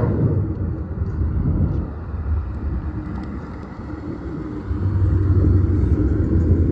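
Ford Mustang GT's 5.0 V8 running through freshly fitted Kooks long-tube headers, a steady low exhaust rumble that grows somewhat louder about two-thirds of the way through.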